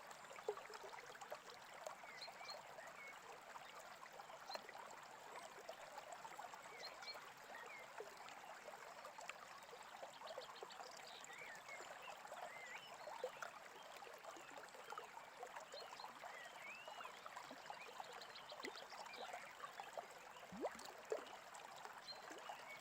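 A small brook babbling and trickling steadily, with several birds chirping over it in short rising and falling calls and a few quick trills.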